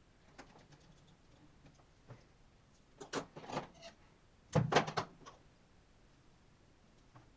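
Small clicks and knocks from laptop parts being handled during a repair: scattered faint ticks, then two short clusters of clattering about three seconds and four and a half seconds in, the second louder.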